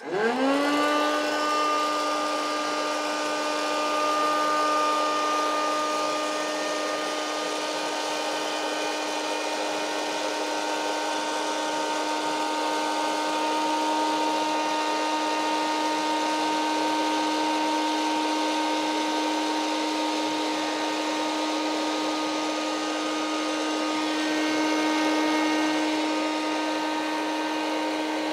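Hot-air popcorn maker switched on: its blower motor spins up with a quick rising whine, then runs steadily with a high hum and rushing air.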